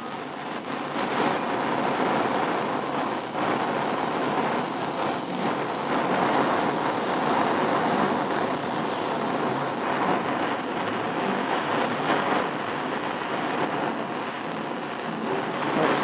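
Gas blowtorch flame burning with a steady rushing noise, heating a silver belt buckle to solder a bar onto its back.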